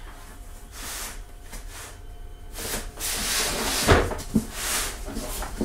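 A 24-inch-square wooden sheet being pulled out and handled: rubbing and scraping of wood, louder from about halfway, with a couple of knocks about four seconds in.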